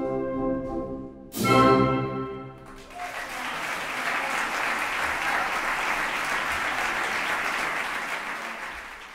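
Symphonic wind band playing the closing bars of a pasodoble, a brief pause, then a short, loud, sharply struck final chord. About three seconds in the audience breaks into applause, which carries on and starts to fade near the end.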